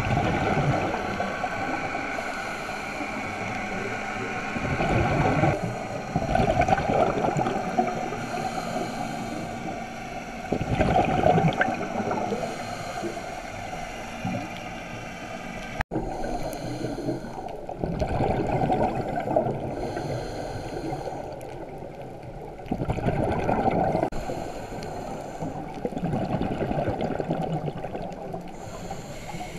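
Scuba regulator breathing heard underwater: a rushing burst of exhaled bubbles about every six seconds, with a steady watery hiss between.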